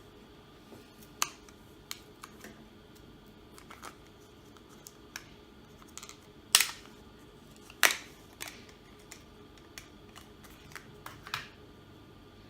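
Irregular clicks and taps of small hard parts and tools being handled inside an opened laptop, as the drive and RAM are fitted back in. Two louder clicks come about six and a half and eight seconds in.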